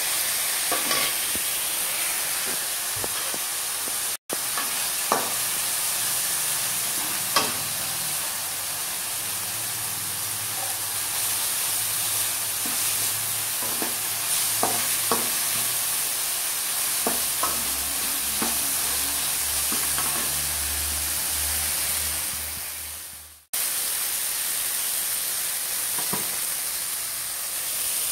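Small onions, tomato and green chilli sautéing in hot oil in a stainless steel pan, sizzling steadily, while a steel spoon stirs them with scattered clicks and scrapes against the pan. The sound drops out briefly twice, about four seconds in and again near twenty-three seconds.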